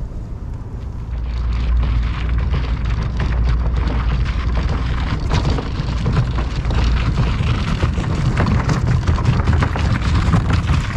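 Kayak trolley wheels and footsteps crunching over sand and small pebbles, a dense crackle that builds about a second in, over a heavy rumble of wind on the microphone.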